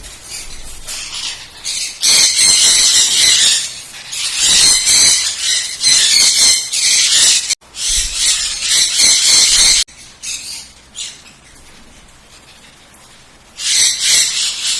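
Pineapple conures, a colour form of the green-cheeked conure, squawking in loud, harsh bouts of a few seconds each, with quieter chirps between.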